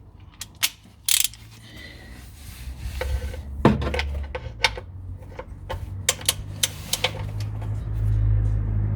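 Ratchet wrench with a 17 mm socket turning the oil drain bolt on the oil pan: a scatter of sharp, irregular metallic clicks. A low rumble underneath grows louder near the end.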